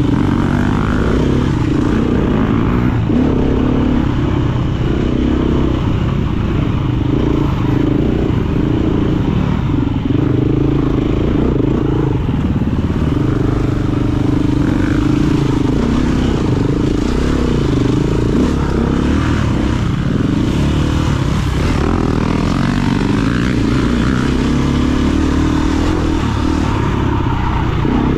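KTM EXC-F 350 enduro motorcycle's single-cylinder four-stroke engine running under load, its revs rising and falling with the throttle.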